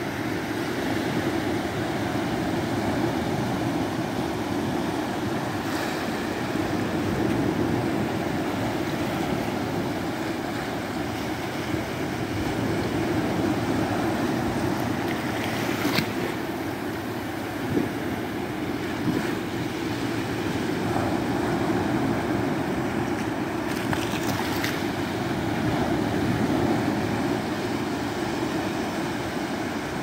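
Small Mediterranean waves breaking and washing up a sandy beach: a steady rush of surf that swells and eases slowly.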